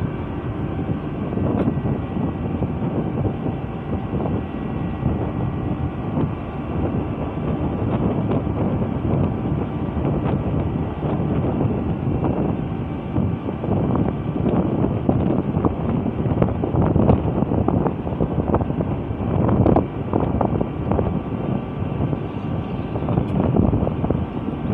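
Wind buffeting the microphone, rumbling and gusting irregularly, over a steady low drone with a few faint steady whining tones.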